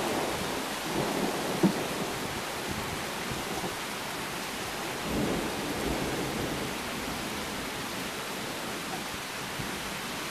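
Heavy summer rain pouring steadily during a thunderstorm, with wind buffeting the microphone. Rumbles of thunder swell about a second in and again around five seconds in.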